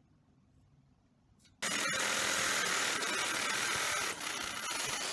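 Reciprocating saw cutting through steel bar stock clamped in a vise. It starts abruptly about a second and a half in and runs steadily, with a brief dip near the end.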